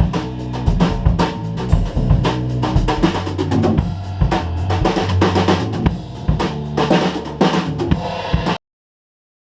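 Live band playing during a sound check: a drum kit keeps a beat with kick and snare hits over sustained low pitched notes. It cuts off abruptly into silence about 8.5 seconds in.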